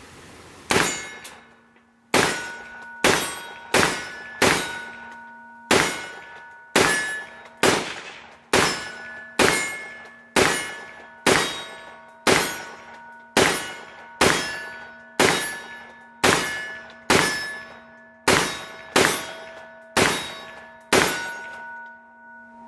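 AR-15 rifle fired about twenty times in slow, steady semi-automatic fire, roughly one shot a second. Each shot is followed by the ringing clang of hanging steel targets being hit, the ring dying away before the next shot.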